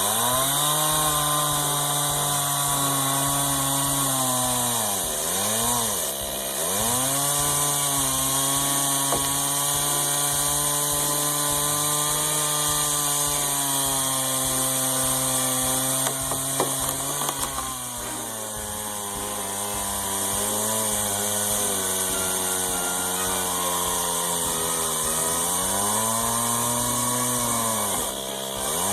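Gas chainsaw running near full throttle and cutting wood. Its engine note dips sharply twice about five seconds in and sags lower for several seconds past the middle as the chain bites into the wood, then drops and recovers again near the end.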